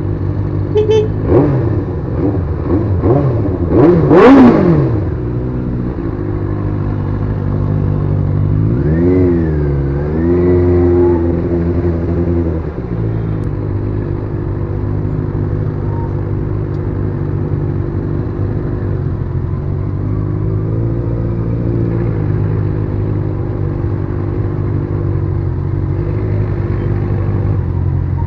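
Benelli TNT600's inline-four engine idling in slow traffic, with a burst of quick throttle blips in the first few seconds, the loudest about four seconds in, and another short rev about a third of the way through.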